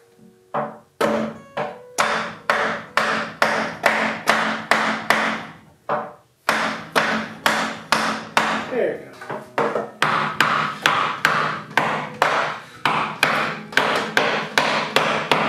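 A mallet knocking on a hardwood desk leg frame, driving a joint home: quick, regular blows, about two or three a second, each with a short hollow ring, with a brief pause about six seconds in.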